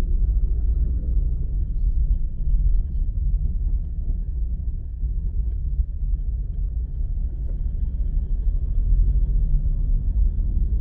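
Steady low rumble of a car on the move, the road and engine noise of driving.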